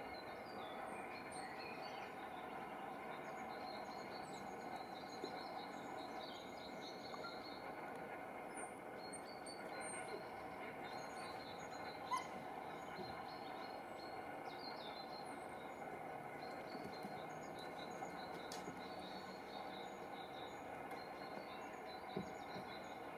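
Quiet outdoor ambience: a steady background hiss and hum with small birds chirping faintly throughout, and a couple of brief ticks, one about halfway through and one near the end.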